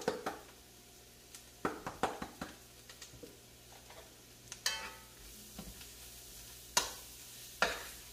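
Curry powder and vegetables sizzling faintly in hot oil in a steel pot. A quick run of taps comes about two seconds in, a ringing metallic clink near the middle, and two sharp knocks of a spoon on the pot near the end as stirring starts.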